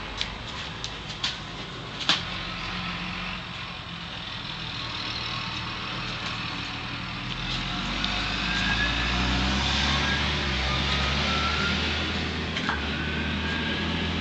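A motor engine running, like a vehicle close by, with a low hum that swells through the middle and eases off near the end. A few sharp clicks come in the first two seconds.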